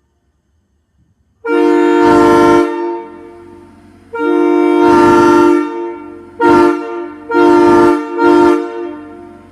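Railroad locomotive air horn sounding a multi-note chord in five blasts: two long blasts, then a short one, a long one and a short one in quick succession. Each blast trails off into a fading echo.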